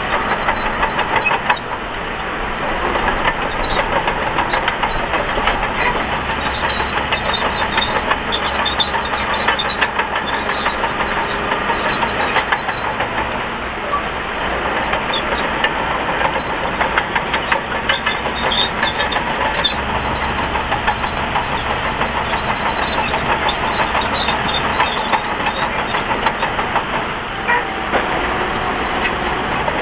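Diesel engines of heavy earthmoving machinery running steadily, with scattered sharp clanks through the din.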